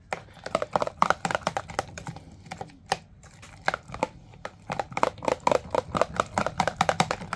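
Immersion blender working through thick homemade mayonnaise with chopped gherkin in a tall plastic beaker, the blade head pumped up and down so the sauce splutters and clicks rapidly. The clatter eases for a moment about two seconds in, then picks up again.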